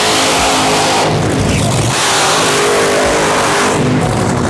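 Top Fuel dragster's supercharged nitromethane V8 at full throttle during a burnout, the rear tyres spinning and smoking, very loud. The noise fades away near the end.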